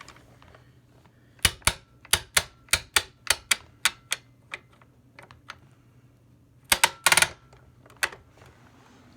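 Height adjustment on a Kirby G6 upright vacuum being worked by hand, clicking through its settings: a run of about a dozen sharp clicks at roughly three a second, then a quick cluster of clicks and one last click. The vacuum's motor is off.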